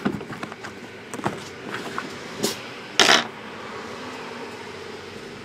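Handling noises on a tabletop: scattered light clicks and taps, then a short, loud rasping noise, like packaging being torn or scraped, about three seconds in, over a steady background hum.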